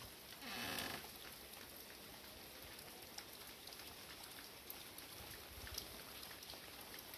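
Steady rain falling, an even hiss with scattered sharp drop ticks, and a brief louder rushing sound about half a second in.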